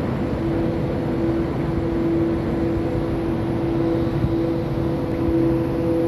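Steady mechanical drone of thermal power station machinery: a continuous rumble with a steady two-note hum over it.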